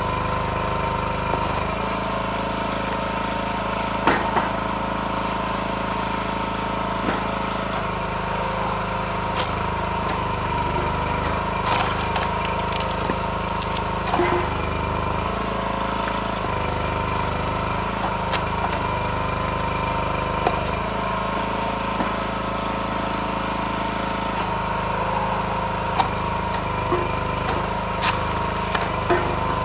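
Timberwolf TW-5 commercial log splitter's small gasoline engine running steadily, its note shifting every few seconds as the splitter works. Short sharp knocks and cracks of firewood splitting and split pieces being handled come in among it.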